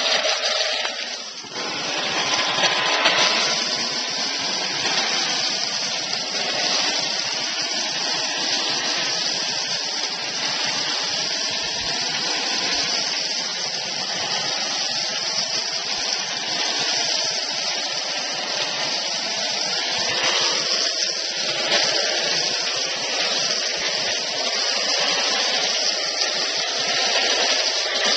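Pressure washer running with a snow foam lance spraying foam onto a car: a steady, even hiss of spray over the pump.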